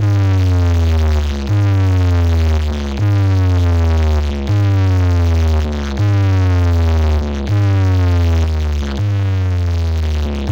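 Electronic track played loud through a stack of horn-loaded DJ bass bins and horn speakers: a deep bass note repeating about every second and a half, each with a falling synth sweep above it.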